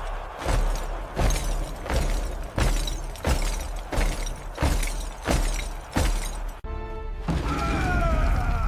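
Dramatic action-score music driven by a heavy crashing hit about every two-thirds of a second, with a glassy shattering texture between the hits. Near the end the hits stop, giving way to a short held chord and then a wavering high tone.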